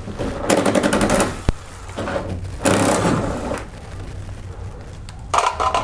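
Cordless power ratchet with an 8 mm socket spinning out the engine splash shield's bolts, in three short bursts of rapid clicking buzz, about a second each or less.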